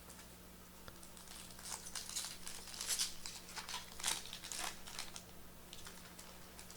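Foil trading-card pack wrapper being torn open and crinkled in the hands, in a run of rustling crackles that are loudest about three and four seconds in.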